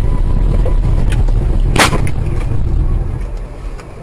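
A car driving, with a steady low road and engine rumble that falls away a little after three seconds. About two seconds in there is one sharp, short knock.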